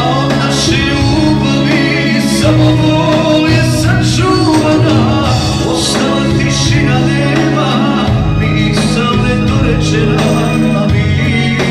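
Male vocalist singing a Balkan pop-folk song live into a microphone, backed by a keyboard arrangement, all through a PA speaker.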